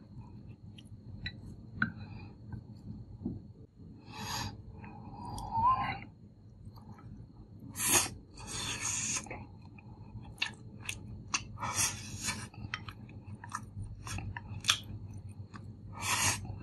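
A person eating braised fish and rice close to the microphone: chewing, with sharp clicks of chopsticks against the clay pot and bowl, and a few louder short bursts.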